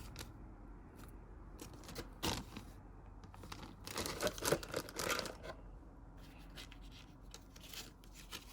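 Plastic kit-parts bag crinkling and rustling as it is handled, in short faint bursts: once about two seconds in, a busier stretch around four to five seconds, and a little more near the end.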